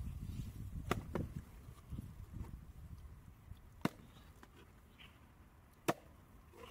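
Knife blade clicking against the shell of a giant mussel as it is pried open. There are four sharp clicks: two close together about a second in, then single ones near four and six seconds, with a low rumble in the first couple of seconds.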